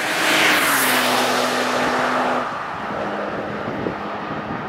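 Peugeot 406 Coupé V6 passing close by at speed, its engine and tyre noise peaking as it goes past and then fading as it drives away. Its engine note holds steady, then drops about two and a half seconds in.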